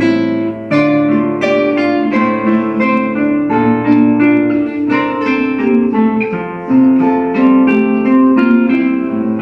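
Acoustic guitar duet playing a fingerpicked piece: a steady flow of plucked melody notes over lower bass notes.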